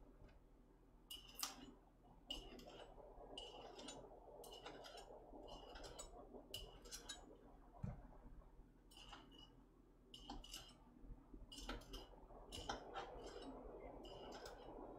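Knife scoring frankfurter sausages on a cutting board: faint, short clicks of the blade against the board, about one or two a second.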